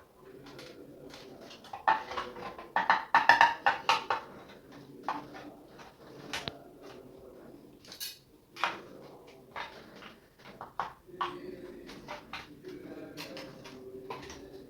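Plastic clicks, snaps and scraping as the case of a DJI Phantom 4 remote controller is pried open, the case being hard to open. A dense run of sharp clicks comes about two to four seconds in, with scattered clicks after that.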